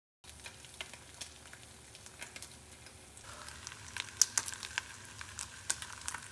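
Two strips of bacon sizzling in a nonstick frying pan: a quiet hiss with scattered sharp pops of spattering fat, growing livelier about three seconds in.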